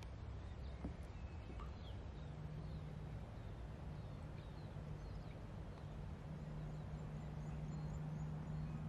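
Quiet outdoor ambience: a steady low hum that grows a little louder near the end, with faint bird chirps here and there.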